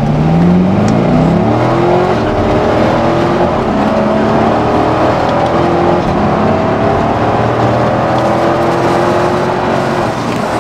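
Car engine accelerating hard, its pitch climbing again and again as it pulls up through the gears.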